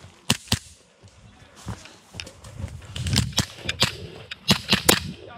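Airsoft gunfire: a quick, irregular string of sharp snaps and cracks, some coming in close pairs and triplets.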